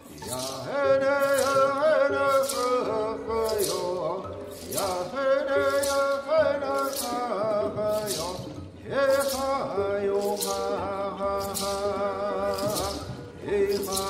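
Men singing a Hopi song in phrases that start about every four seconds, over a steady beat of hand rattles shaken about once or twice a second, with bowed strings holding notes underneath.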